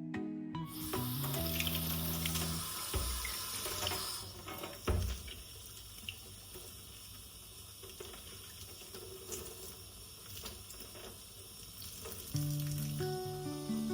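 Water running from a tap into a sink. It starts suddenly about half a second in, with scattered small clinks and knocks throughout.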